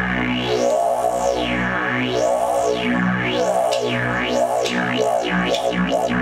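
Music: a held synthesizer chord with a resonant filter sweeping up and down, the sweeps coming faster and faster.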